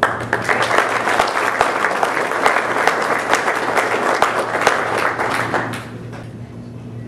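Audience applauding: many hands clapping at once, starting suddenly and dying away about six seconds in.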